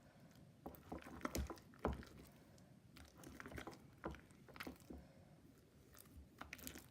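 Faint sticky, wet clicks and squelches of glue and cornstarch slime being mixed with borax activator, scattered irregularly.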